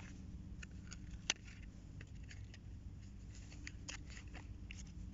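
Hard plastic blister packaging of a fishing lure being handled and opened: a scatter of small sharp clicks and crackles, the sharpest about a second in.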